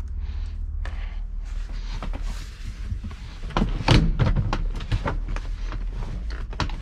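Irregular clicks and metallic knocks of hand tools working on a car seat's mounting bolts, loudest about four seconds in, over a steady low hum.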